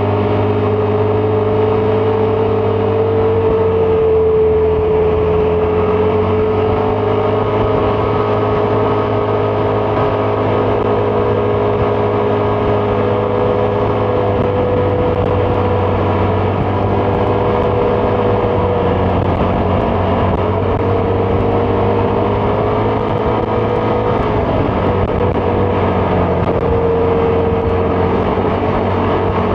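Vespa GTS 300 scooter's single-cylinder engine running steadily while riding, its pitch drifting slightly up and down with the throttle.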